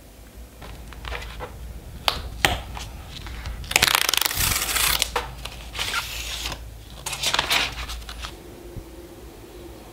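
White cardboard packaging being opened by hand: a few light taps, then the box's pull-tab tear strip ripped open about four seconds in, followed by rustling of card and paper as the flaps are lifted.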